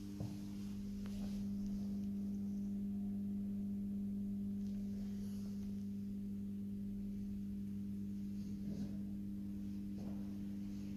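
A steady low hum holding one pitch with fainter overtones, with a few faint soft knocks.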